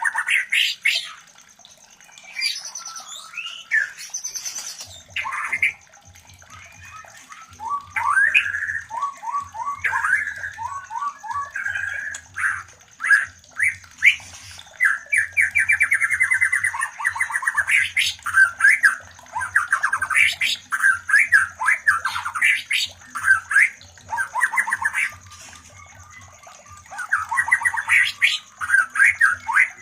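White-rumped shamas (murai batu) calling while mating: rapid chirps, chattering trills and harsh squawks in quick runs, with a few short lulls.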